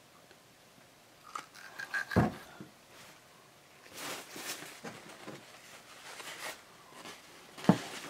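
Plastic cup and bottle set down on a tabletop with a few knocks, then paper towel rustling as gloved hands wipe up, and one sharp knock near the end as a plastic cup is put down.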